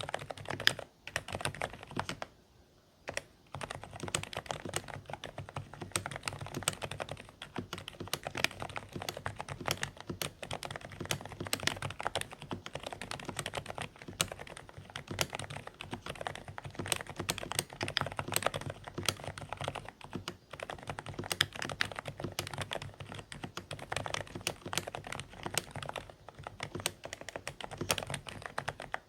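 Dareu A104 Pro mechanical keyboard with silent beige switches being typed on steadily: a dense run of quiet, slightly muffled keystrokes, with a short pause about two seconds in.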